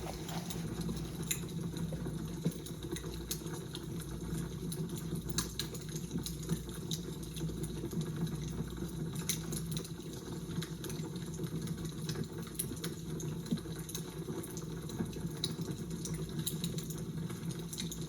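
Fire crackling: irregular small snaps and pops over a steady low rumble.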